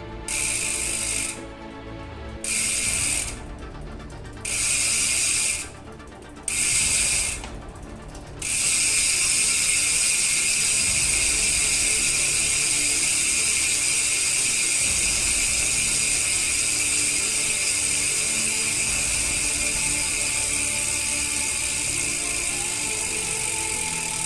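ARC MT009 rear hub freewheeling: its pawls click so fast that they run together into a loud, high-pitched buzz. This comes in four short spurts of about a second each, then runs continuously from about eight seconds in.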